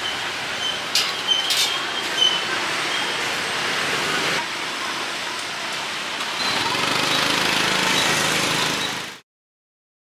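Steady noisy background with a few sharp clicks about a second in and a louder stretch near the end, then the sound cuts off abruptly.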